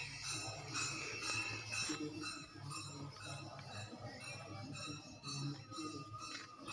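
Devotional music with a steady beat of jingling, clinking metal percussion.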